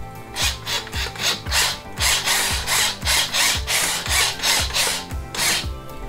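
Salt grinder grinding salt onto an ear of corn: a rough, gritty rasp in short pulses at first, then more continuous, stopping near the end.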